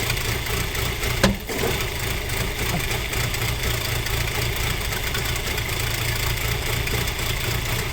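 Audi A4 B6 2.0-litre ALT four-cylinder petrol engine idling cold with knocks, which the owner suspects come from the camshaft phaser or a stretched, slipping timing chain between the two camshafts. A single sharp click sounds a little over a second in.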